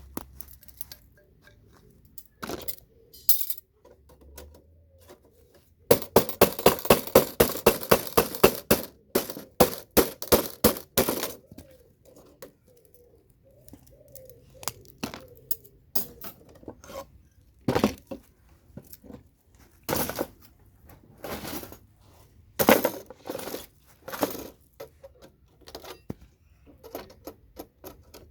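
Metal hammer and chisel striking in sharp clinking knocks, prising CPU sockets off scrap motherboards. A rapid run of strikes comes about six seconds in, followed by scattered single knocks and taps.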